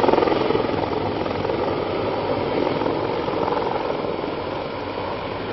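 CH-53-type heavy-lift military helicopter flying low overhead: a steady rotor beat over turbine noise, loudest at the start and slowly fading.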